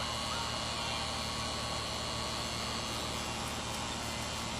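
Steady low electrical or mechanical hum with a faint high whine, unchanging throughout.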